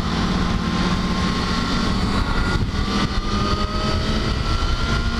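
Motorcycle engine running at highway speed under heavy wind rush, with a faint engine tone that climbs slowly in pitch.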